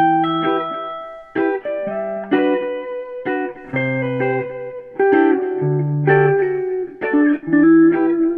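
Background music: a plucked guitar tune with a steady rhythm, notes struck and left to ring.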